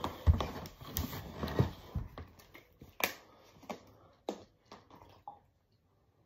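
Scattered thumps and taps of a person getting up off the floor after push-ups and moving about close to the phone, the heaviest thump about a third of a second in, the taps thinning out until it is almost quiet near the end.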